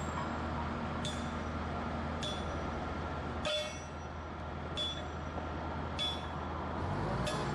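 Hammer blows on steel track hardware, about one strike a second, each hit ringing out, over the steady hum of an engine running nearby.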